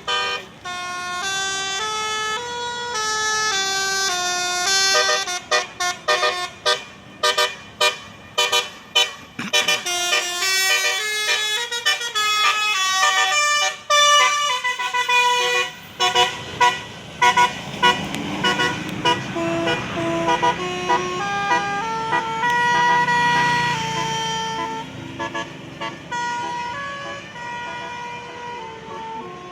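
Bus telolet horn, a multi-tone musical horn, playing a string of stepped tunes. From about six to sixteen seconds in it fires quick repeated honks. A bus engine runs underneath, louder in the second half as the bus passes.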